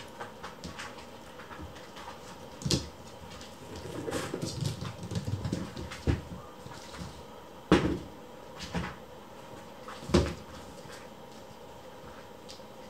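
Kittens pouncing and scampering after a dangled toy on a floor: light scuffing and rustling of paws, with three sharper thumps.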